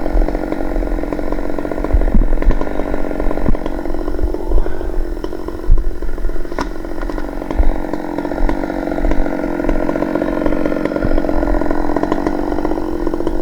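Stihl chainsaw in an Alaskan chainsaw mill running at full throttle under load while ripping along a log, its pitch holding steady through the cut.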